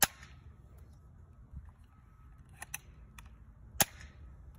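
Nerf Alpha Strike Wolf LR-1, a spring-powered single-shot dart blaster, firing twice: a sharp snap at the start and another nearly four seconds later, with a couple of lighter plastic clicks between the shots.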